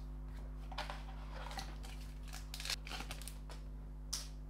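Glossy Donruss Optic football cards sliding against one another as a stack is flipped through by hand: soft, brief brushing strokes at irregular intervals, over a low steady hum.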